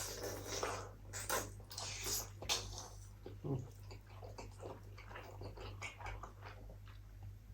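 People chewing food close to the microphone, with irregular short wet smacks and clicks, under a steady low electrical hum.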